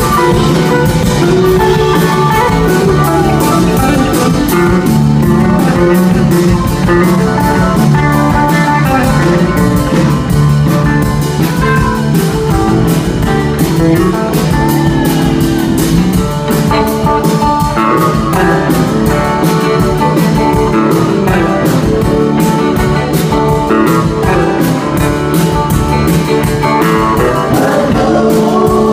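Live rock band playing an instrumental passage without vocals: electric guitar over bass and drum kit, loud and continuous.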